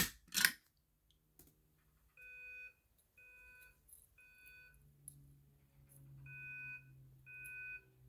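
Two sharp clicks at the start, then a fire alarm notification appliance sounding the temporal-three evacuation pattern: three short beeps, a pause, then three more. A low steady hum joins about halfway through.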